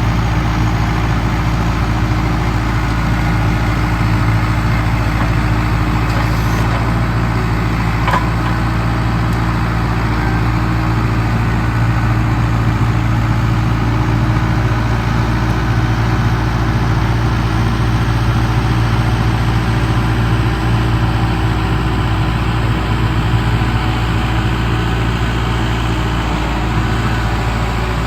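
Kubota M7060D tractor's four-cylinder diesel engine running steadily at a constant speed, a low even drone with no revving.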